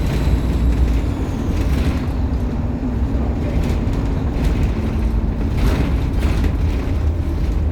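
Optare Solo M880 midibus engine running under way, heard from inside the saloon: a steady low rumble with a constant hum, and short rattles from the body every second or so.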